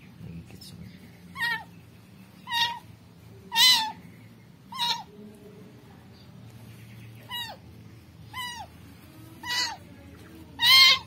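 Newborn kitten meowing: eight short, high cries, each falling in pitch at its end, about a second apart with a pause in the middle. The loudest cry comes near the end.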